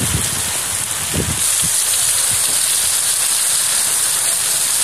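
Heavy rain pouring down in a steady, dense hiss that grows brighter about a second and a half in. A few low rumbles come in the first second and a half.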